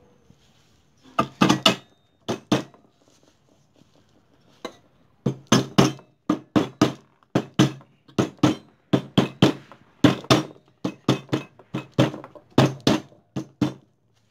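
A mallet striking the aluminium case of a motorcycle engine, tapping the cover down onto the crankcase. First a few scattered pairs of blows, then from about five seconds in a steady run of about two to three sharp knocks a second. The cover is being seated without gaskets and is not going on easily.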